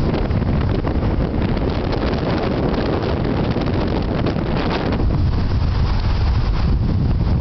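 Strong wind buffeting the microphone in a steady low rumble, with the rush of wind-driven waves on the lake; the hiss swells for a couple of seconds in the middle and drops back about five seconds in.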